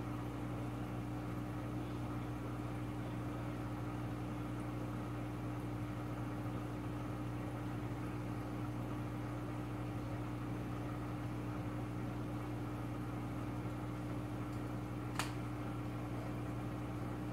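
Aquarium equipment, such as a filter pump, humming steadily, with a low drone and a faint hiss. There is one short click near the end.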